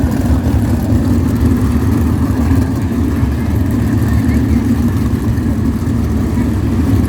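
Engines idling steadily: a constant low rumble with no revving.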